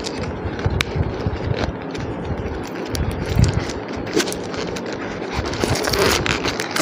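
A small cardboard gift box being handled and prised open: low bumps and rubbing against the table, with a few light clicks and a stronger thump about midway.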